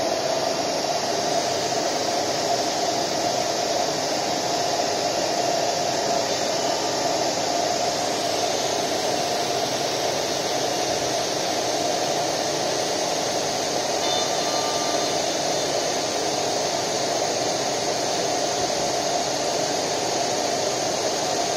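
1325 ATC CNC router running, a steady, even whir of its spindle and machine motors with no changes in pitch or level.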